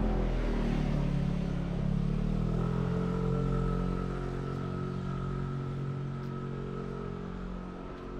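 A motor vehicle's engine passing close by, its pitch dropping over the first second or two, then running steadily and slowly fading.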